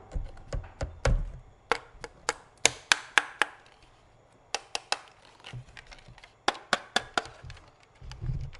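A series of sharp, irregular clicks and knocks of hard objects, with a quieter stretch in the middle and a low thud near the end.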